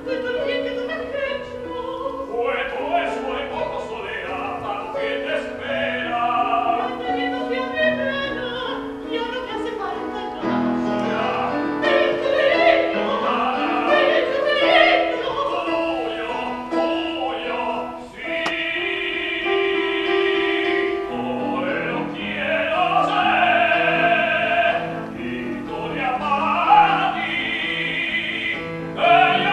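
Operatic singing with piano accompaniment: a Spanish zarzuela-style number, with long held notes sung with vibrato about two-thirds of the way through.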